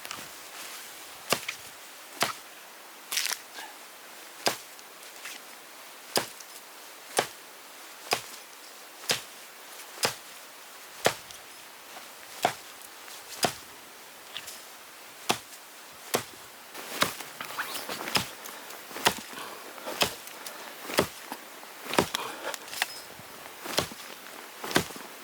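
Repeated sharp chopping strikes at a steady pace of roughly one a second, with a few quicker double strikes.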